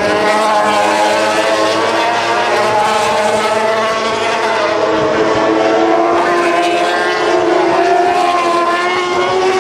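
Several MotoGP racing motorcycles, 1000 cc four-strokes, running at high revs at a distance, their engine notes overlapping and sliding up and down in pitch as they brake and accelerate.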